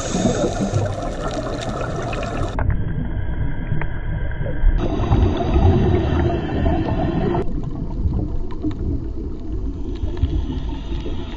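Underwater ambient noise picked up by a camera in its waterproof housing: a steady low rumble and hiss of water, with faint crackles. Its tone shifts abruptly three times, where one clip is cut to the next.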